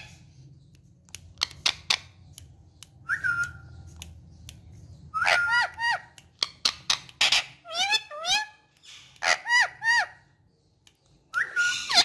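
Male Indian ringneck parakeet (rose-ringed parakeet) calling. After a few soft clicks it gives a short whistle about three seconds in, then from about five seconds a run of high whistled, speech-like phrases in short bursts that bend up and down in pitch.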